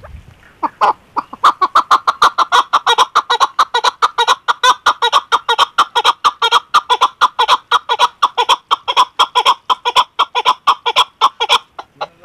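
Chukar partridge calling: a long, fast run of sharp clucking notes, about five a second. It starts about half a second in and stops just before the end.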